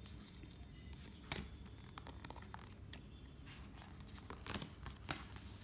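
Faint rustling and soft clicks of Wild Unknown tarot cards being thumbed through in the hand, with a few sharper card ticks.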